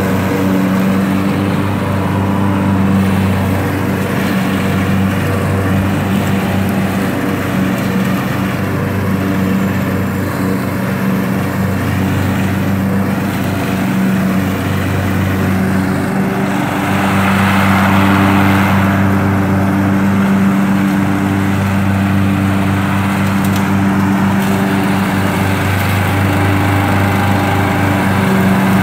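Troy-Bilt riding lawn mower running steadily while mowing tall grass, its engine giving a constant low hum. About two-thirds of the way through, a brief rushing swell rises over the hum.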